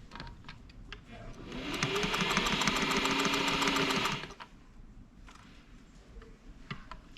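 Singer 401 sewing machine test-sewing: the motor speeds up and the needle strokes at a steady fast rate for about three seconds, then stops. A few faint clicks follow.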